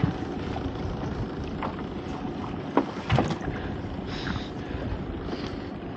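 Wind and sea noise around a small open boat in rough weather, a steady rushing with wind on the microphone. There are a couple of sharp knocks about three seconds in.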